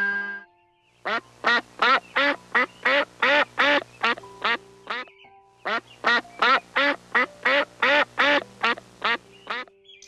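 Duck, a mallard hen, quacking in two long, even runs of about three quacks a second, with a pause of under a second between them.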